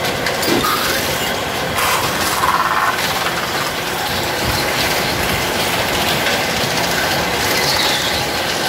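Metal spinning lathe running with an aluminium pot spinning on it, a steel tool bar pressed and scraping against the turning metal as the pot is formed. Steady loud mechanical rattle and rumble, with a brief squeal about two seconds in.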